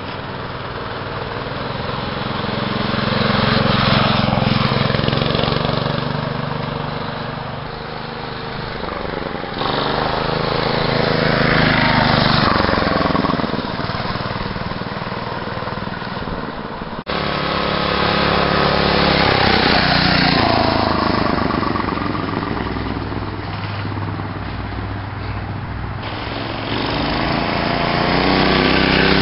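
Trail Horse mini bike's 5 hp Tecumseh single-cylinder four-stroke engine running as the bike is ridden, swelling in loudness as it comes near and fading as it moves away, several times over, with the engine's pitch rising and falling.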